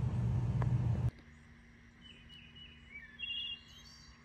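A loud, steady low rumble cuts off about a second in. After it come wild birds chirping and whistling, with short repeated notes and one louder call near the end.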